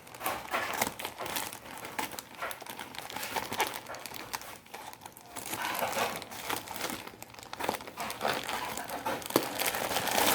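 Parcel packaging being opened by hand: continuous crinkling and crackling, with some tearing.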